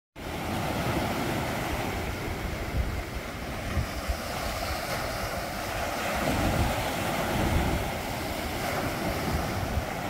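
Sea surf breaking over rocks and washing up a sandy beach, a steady wash that swells and eases as each wave comes in, louder about six to seven seconds in.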